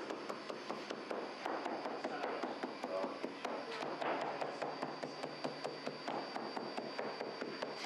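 Bakery machinery running with a rapid, even ticking, about four to five ticks a second, over a faint steady high whine. Soft rustles and pats come and go as raw barbari dough is flipped with a cloth-covered board.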